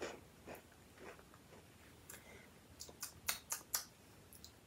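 Faint chewing of a Hello Panda cocoa and matcha biscuit: soft mouth sounds with scattered sharp clicks and a quick run of four or five louder clicks about three seconds in.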